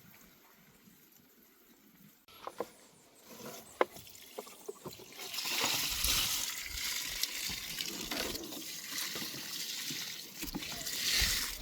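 A few light clicks and knocks, then water starts running or spraying about five seconds in, a steady splashing hiss that swells and eases.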